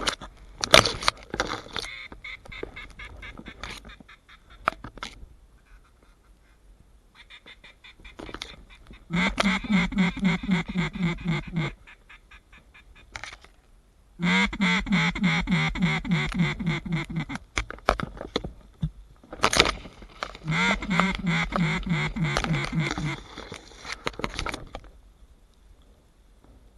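Duck call blown in three runs of rapid, evenly spaced quacks, each run lasting about three seconds, with a few clicks and knocks in between.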